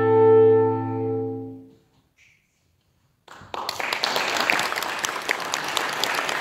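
A clarinet quartet, with a bass clarinet on the bottom note, holds its final chord, which swells and then fades out within the first two seconds. After a short silence, an audience bursts into applause.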